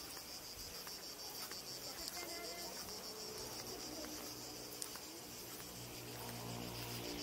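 Insects chirring steadily in a high, pulsing drone. A low steady hum comes in near the end.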